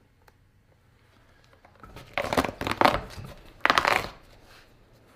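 Old leather sole being torn and scraped away from a shoe, exposing the cork filler: rough ripping and scraping strokes about two seconds in, then another short bout about a second later.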